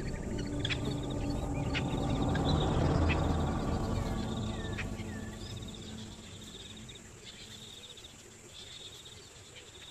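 Bush ambience of insects trilling in repeated high pulses about a second long, with a few short bird calls and sharp clicks. A low, dense swell underneath rises about three seconds in and fades away by the second half.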